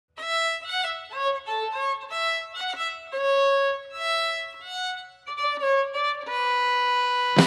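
Music: a solo fiddle melody played one note at a time, ending on a long held note.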